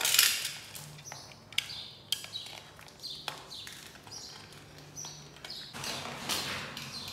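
White PVC stretch-ceiling film crinkling and rustling as it is handled and cut, with a few sharp clicks and small high squeaks of the plastic. A loud crackle comes at the start and another rustle near the end.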